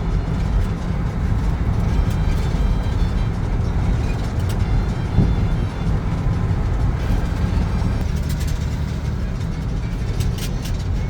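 Steady low rumble of a vehicle in motion, with a few faint clicks near the end.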